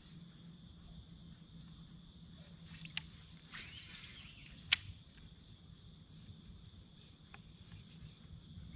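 Steady high-pitched chorus of insects trilling without a break, with a couple of sharp clicks in the middle.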